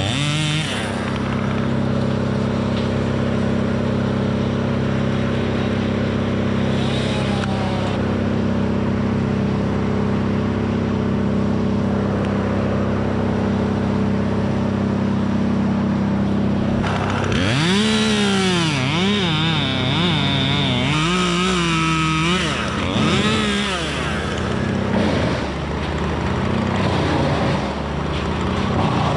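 A steady engine drone, then about seventeen seconds in a chainsaw revs up hard, its pitch dipping and recovering several times as it cuts into the dead white oak's wood.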